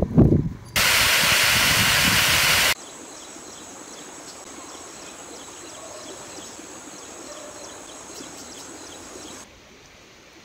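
A loud, even rushing hiss cuts in about a second in and stops abruptly two seconds later. Quieter outdoor ambience follows, with insects buzzing at a steady high pitch and faint ticking, until the level drops near the end.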